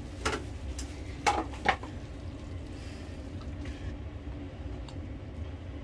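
A metal ladle or spoon knocking against a stainless-steel cooking pot three or four times in the first two seconds, as the sauce is stirred, over a steady low hum.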